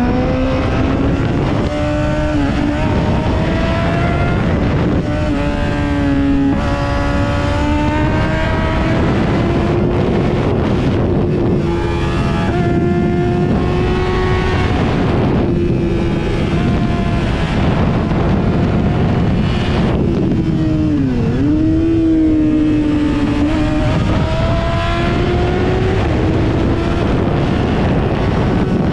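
Yamaha sportbike engine at speed on a racetrack, heard from on board. Its pitch climbs again and again, stepping between gears, and dips sharply about two-thirds of the way through before climbing back, all under a steady rush of wind on the microphone.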